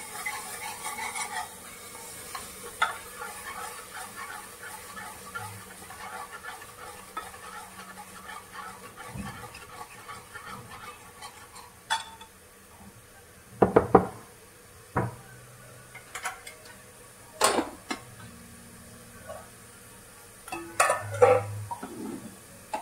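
A spoon stirring and scraping in a cooking pot in soft, repeated strokes, then about six sharp metal clanks of utensils against the pot over the second half.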